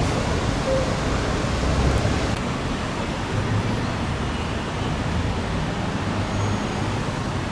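Steady road traffic noise, vehicles passing with a low rumble, swelling slightly about two seconds in.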